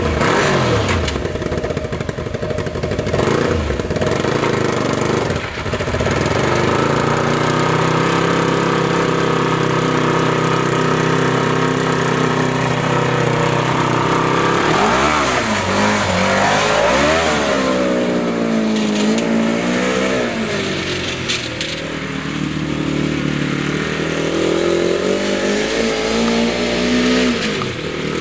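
1992 Honda CBR600 inline-four motorcycle engine in a homemade buggy, coming in suddenly at the start and settling to a steady idle, then revved up and down several times from about halfway through. It is pretty loud through its motorcycle mufflers because a nut or bolt is missing on the header pipe, leaking exhaust there.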